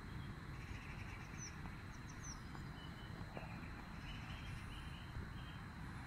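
A few faint bird chirps and calls over a steady low outdoor rumble, with a thin steady high tone.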